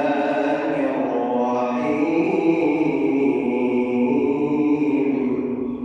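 A man's voice reciting the Quran in melodic tajweed style, drawing out long, wavering held notes, with an added echo effect on the voice.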